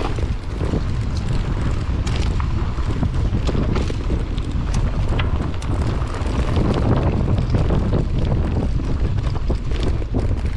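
Wind rushing over a GoPro action camera's microphone on a mountain bike riding down a rough dirt singletrack, a steady low rumble, with frequent sharp clicks and rattles from the bike and its tyres over the bumpy ground.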